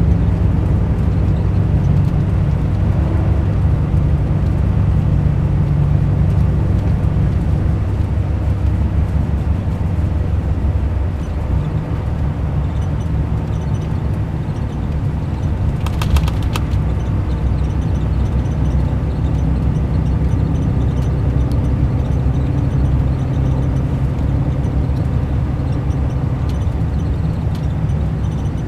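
Mercedes-Benz O500 RSD Euro 5 coach's diesel engine running steadily with a deep drone. It eases slightly a little before halfway through, and a brief click comes just past the middle.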